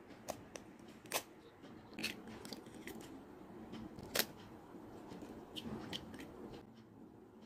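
Two eggs being cracked into a plastic bowl: a series of sharp clicks and crunches of breaking eggshell, the loudest about four seconds in.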